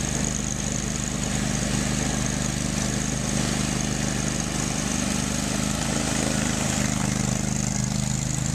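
Engine of a Max II amphibious ATV running steadily as it pushes through a deep mud hole, the note rising slightly about halfway through, with the churned water splashing around the hull.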